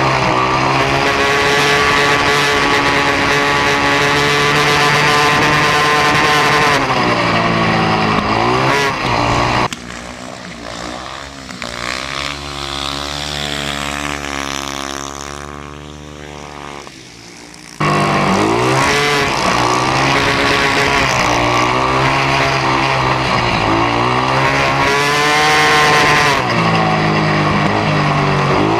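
Speedway bike's single-cylinder engine at racing speed on the dirt oval, heard up close from on board, its pitch rising and falling as the throttle opens and closes through the turns. In the middle stretch, about eight seconds long, a bike's engine is heard more quietly from the trackside. It then cuts suddenly back to the loud on-board sound.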